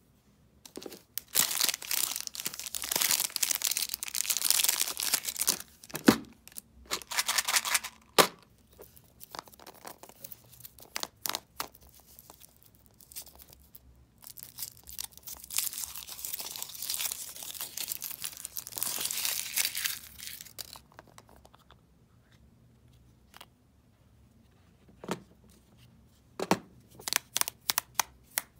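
Foil wrapper of a Kinder Surprise chocolate egg crinkling and tearing as it is unwrapped by hand, in two long stretches. A few sharp cracks and clicks come in between, and a run of them near the end as the chocolate shell is split and the yellow plastic toy capsule is handled.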